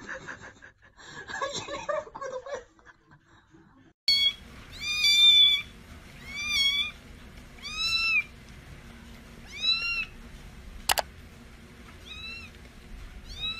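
A small kitten mewing over and over in high-pitched cries, about one every one to two seconds, each rising and falling in pitch; the mewing begins about four seconds in, after a few seconds of indistinct noises. A single sharp click sounds between the cries near the end.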